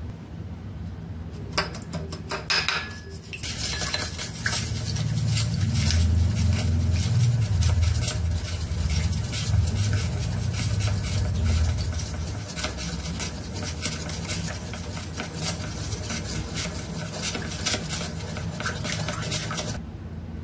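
Spoon stirring sauce in a small ceramic bowl: a dense run of quick clicks and scrapes against the bowl that starts after a few taps about two seconds in and stops abruptly near the end. A steady low hum runs underneath.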